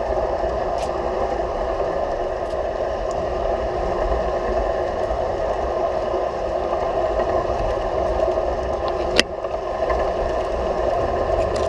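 G scale model train running on garden railroad track, heard from on board: a steady whir and rumble of its motor and wheels, with one sharp click about nine seconds in.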